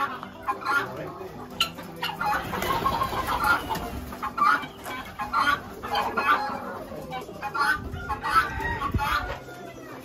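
A flock of domestic guineafowl and chickens calling, with many short, repeated calls overlapping one another.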